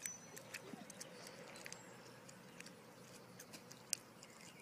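Faint outdoor background with scattered light clicks and taps, and one sharper click near the end.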